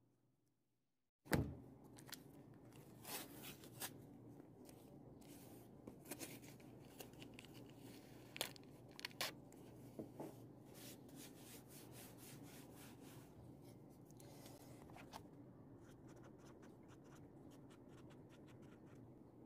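Quiet handling of masking tape on a fabric bag: a sharp knock about a second in, then crinkling, tearing and scraping as the tape is handled and pressed down. Near the end come quick, fine scratching strokes as a marker writes on the tape.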